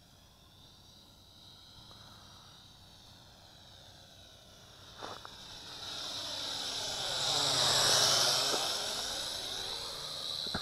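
Syma X8SW quadcopter's motors and propellers whining as it flies past the microphone, swelling to a peak about eight seconds in and then fading.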